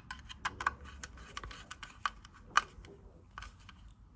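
A screwdriver tightening a terminal screw on a Honeywell T6360B room thermostat's terminal block, heard as small irregular clicks and scrapes of metal on the screw and plastic housing. One sharper click comes about two and a half seconds in.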